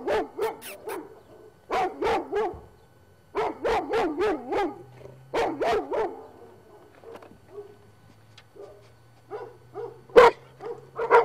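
Dogs barking in runs of quick, rapid barks with short pauses between them, fainter for a few seconds in the middle and picking up again near the end. A single sharp knock about ten seconds in is the loudest moment.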